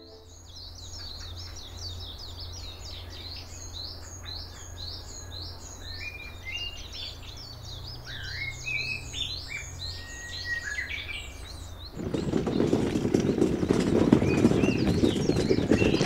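Many small birds chirping and singing together, high-pitched notes that slur downward and repeat quickly, over a low steady hum. About twelve seconds in, a louder, even rushing noise takes over.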